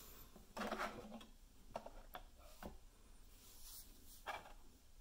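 Plastic camera mount adapters handled in a molded plastic packaging tray: a short rustle under a second in, a few light clicks around two seconds in, and another brief rustle near the end.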